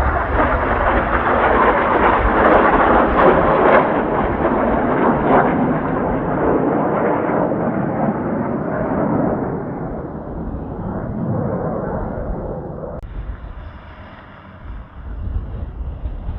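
Jet roar of Blue Impulse Kawasaki T-4 trainers passing overhead. It is loudest a few seconds in and fades away over the next ten seconds. Strong wind buffets the microphone near the end.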